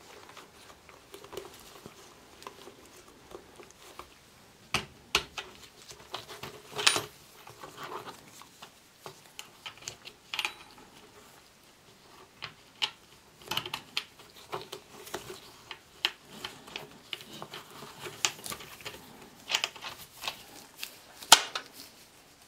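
Irregular clicks, taps and rustling from handling a leather helmet liner inside a steel M16 Stahlhelm shell, its metal liner fittings knocking against the shell. The sharpest click comes near the end.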